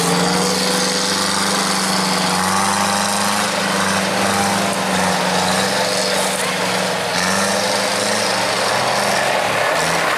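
Off-road 4x4 vehicle's engine running steadily at raised revs. The pitch climbs a little at the start and dips briefly about seven seconds in.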